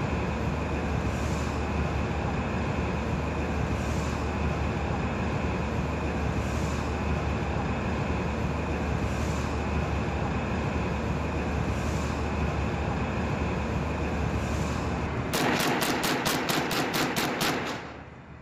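Steady drone of a ship under way. About fifteen seconds in it is overtaken by bursts of automatic gunfire: a rapid, even string of shots at about five a second for some two and a half seconds, which stops just before the end.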